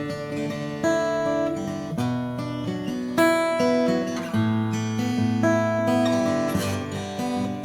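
Taylor Presentation Series PS14ce acoustic guitar being played: chords strummed and picked, each left to ring, with a new chord struck about every second.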